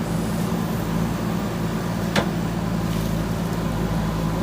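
JCB backhoe loader's diesel engine running at a steady speed, with a single sharp knock about two seconds in.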